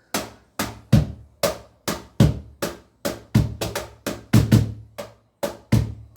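Cajón played with the hands in a steady rhythm, about three strokes a second, deep bass strikes alternating with lighter, sharper slaps.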